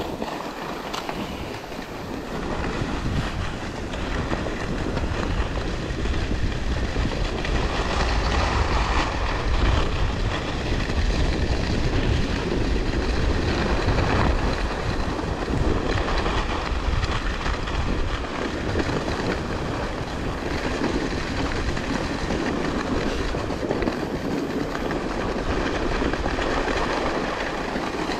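Alpine skis sliding and scraping over a groomed corduroy piste in a continuous rush, with wind rumbling on the microphone.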